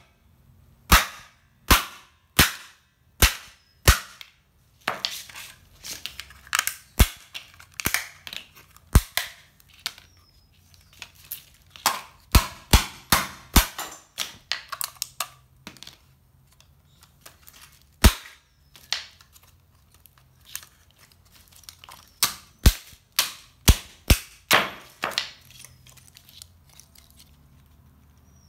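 Sharp cracks and snaps of a TV antenna booster's black plastic case being broken apart: a steady series of single cracks at first, then quick clusters of them, tailing off near the end.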